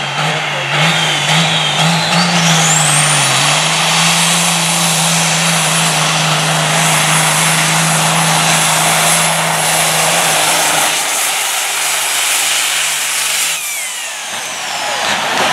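Big-rig semi truck's diesel engine running hard under full load while pulling a weight sled, with a high turbo whistle rising about two seconds in and holding steady. Near the end the engine backs off and the whistle falls away.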